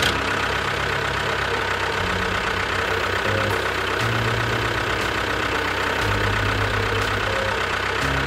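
Tractor engine running steadily, its low pitch shifting up and down in steps every second or so.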